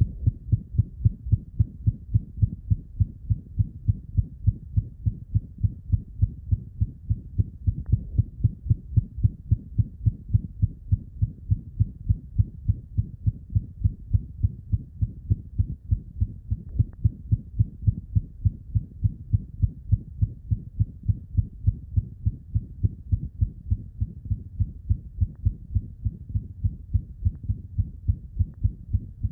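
A cat's heart heard through a stethoscope, beating fast and regularly, with a murmur between the beats. This is a murmur in a heart that echocardiography found structurally normal.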